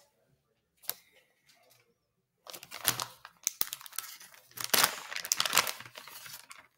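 Plastic bait packaging being crinkled and torn open by hand: a short tap about a second in, then dense crackling and ripping from about two and a half seconds in until near the end.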